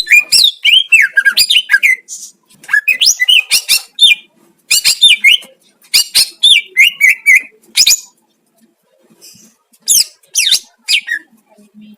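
Green leafbird (cucak ijo) singing: phrases of quick, sweeping whistled notes with short pauses between them, and a longer pause about two-thirds of the way through.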